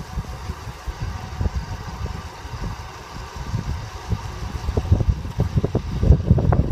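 Wind buffeting the microphone of a camera on a moving recumbent bicycle: irregular low rumbling gusts over a steady hiss, with the gusts coming more often in the last couple of seconds.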